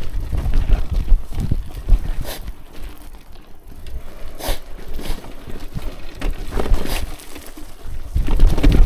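Hardtail mountain bike rattling over a rocky track, with sharp, irregular knocks over a steady low rumble.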